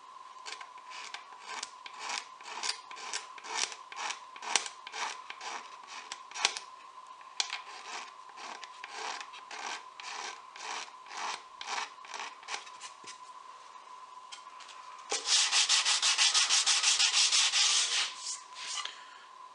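Razor blade used as a small cabinet scraper, scraping stubborn leftover finish off a stripped mahogany drawer edge: steady strokes about three a second, then a louder run of quick strokes near the end.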